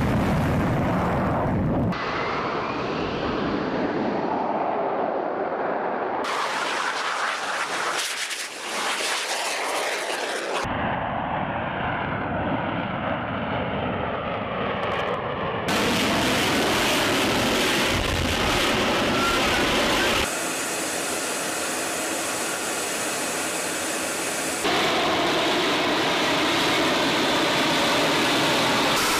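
Jet engine noise of F-35B fighters at high power during takeoff and hover. The noise is a continuous run of segments that switch abruptly to a different character every four to five seconds.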